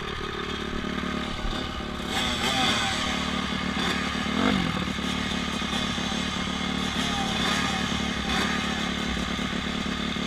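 Dirt bike engine running steadily, with one short blip of the throttle about four and a half seconds in.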